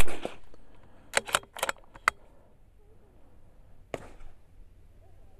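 A single .22 LR rifle shot at the very start, a sharp crack that dies away quickly. It is followed about a second later by a quick run of metallic clicks as the bolt is worked to chamber the next round, and one more click near the end.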